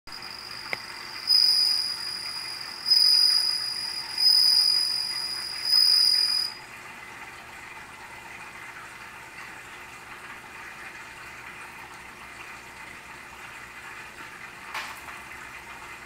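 Japanese bell cricket (suzumushi) singing: four high, ringing trills, each about a second long, starting loud and fading. The song stops a little before halfway through.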